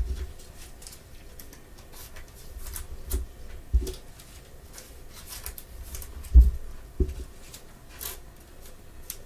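Gloved hands handling a stack of glossy trading cards and sliding one into a soft plastic sleeve: light rustling and scraping of card and plastic, with a few soft thumps, the strongest about two thirds of the way through.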